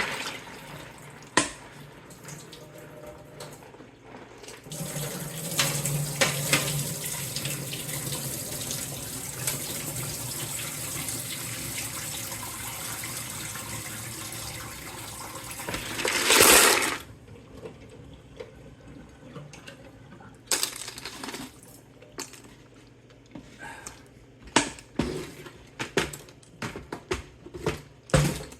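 Water running and splashing into a small portable washing machine tub during a water change, with a loud gush about two-thirds of the way through. Near the end come scattered light clicks and knocks.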